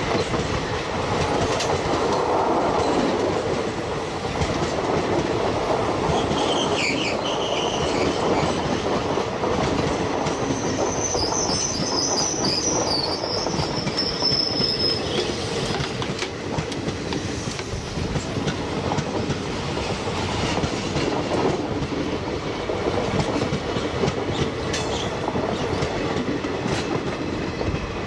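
ICF passenger coaches of an express train rolling past on a sharp curve: a steady rumble with the clickety-clack of wheels over rail joints. High wheel-flange squeal rises briefly about a quarter of the way in and again for a few seconds near the middle, as the wheels grind through the curve.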